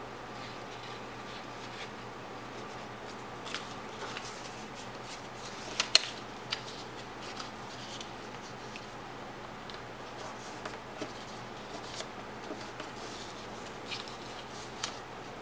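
Origami paper being folded and creased by hand on a table: scattered short crinkles and taps, the sharpest pair about six seconds in, over a steady low hum.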